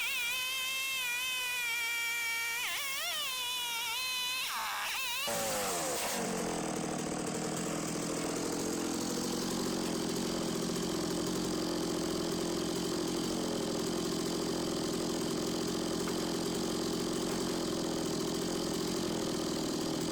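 STIHL MS 660 two-stroke chainsaw on an Alaskan-style chainsaw mill running at full throttle in a rip cut, its high pitch wavering with the load. About five seconds in the revs fall away as it comes out of the cut, and it settles into a steady idle.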